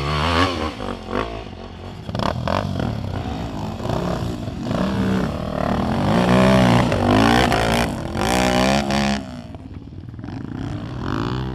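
Off-road motorcycle engines revving up and down as the bikes climb a steep dirt hill, the pitch rising and falling with the throttle. It is loudest around the middle as a bike climbs close by.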